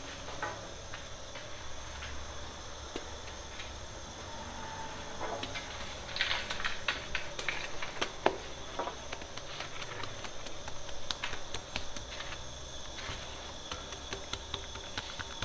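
Wet hands patting, spreading and pressing sangak dough on a wooden bread peel, giving scattered soft slaps and clicks, busier in the second half, with one sharp click about eight seconds in. Under it runs a steady bakery hum and hiss.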